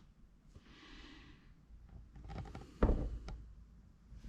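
Handling noise from a small charging cable and its connectors: a faint rustle, then a single sharp knock nearly three seconds in, followed by a fainter click.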